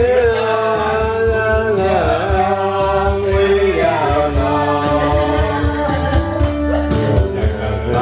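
A man singing karaoke through a microphone over a recorded backing track with a steady beat, holding long notes that bend in pitch.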